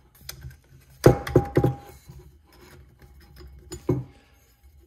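Handling of a metal vanity light fixture with frosted glass shades on a wooden workbench: a quick run of sharp knocks about a second in, with a brief ringing, then light rubbing and one more knock near the end.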